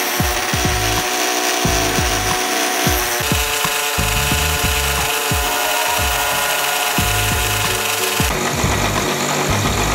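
Bench grinder running while a small steel knife blade, cut from an old file, is held against the spinning wheel and ground, a steady grinding hiss that shifts about three seconds in and again near the end, with background music underneath.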